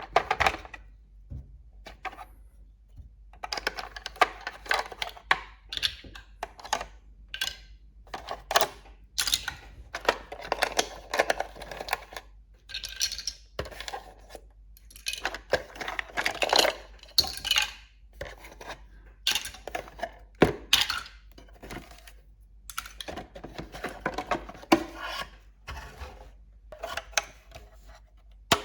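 Small plastic toy kitchen pieces being handled and set down: irregular clicks and light clattering in short clusters, with brief pauses between them.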